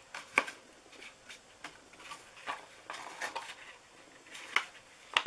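Light taps and clicks of a sponge dauber dabbing ink onto a cardstock box while the box is turned in the hands, scattered and irregular, the sharpest about half a second in and near the end.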